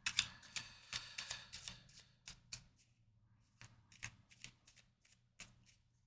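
Tarot cards being shuffled by hand: a quick run of card clicks and flicks for about two seconds, then scattered single clicks as the cards are handled.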